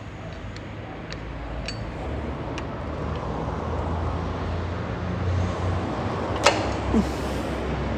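Low, steady vehicle rumble that slowly grows louder, with a few light clicks and one sharp click about six and a half seconds in.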